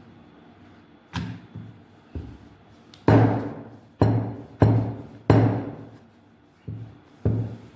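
Percussion music: a run of heavy drum hits, each ringing out, in an uneven rhythm that is loudest in the middle.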